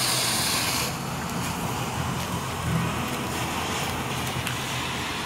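Red smoke firework hissing as it burns. The shower of sparks at ignition gives a loud, high hiss for about the first second, which then settles into a quieter steady hiss as the smoke pours out.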